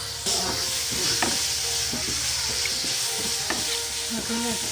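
Peeled shallots tipped into hot oil and fried spice powder in a frying pan start sizzling about a quarter second in, and a spatula stirs them, knocking against the pan a few times.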